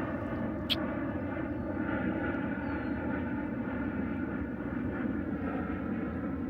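Airplane flying over: a steady engine drone. A short high chirp comes just under a second in.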